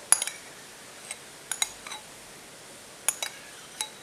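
Metal spoon clinking against a small glass bowl while diced tomato is scooped out of it: a string of sharp, irregular clinks, some in quick pairs.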